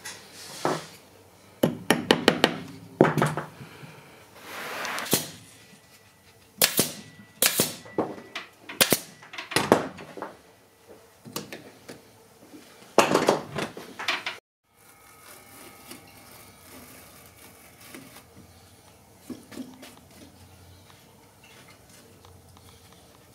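Upholstery tools at work on a wooden chair frame and its new seat cover: clusters of sharp clicks and knocks. About two-thirds of the way in they stop abruptly, leaving faint, steady room tone.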